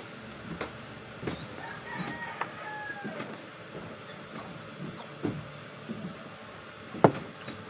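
Faint close-up eating and drinking sounds: chewing a bite of crunchy camote cue, fried sweet potato with a caramelized sugar crust, then swallowing from a drink bottle, with small scattered clicks and one sharp knock about seven seconds in.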